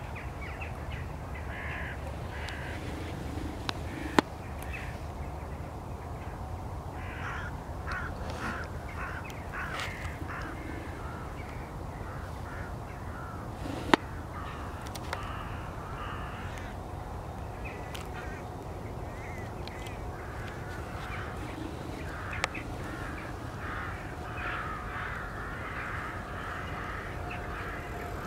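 A flock of crows cawing, the calls coming thick about a third of the way in and again near the end, over a steady low rumble. Two sharp clicks stand out, about four seconds in and about halfway through.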